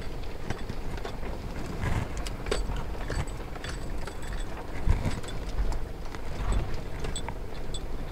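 A vehicle's engine running at low speed on a rough dirt track, with many short clicks and crackles scattered throughout and a heavier low thump about five seconds in.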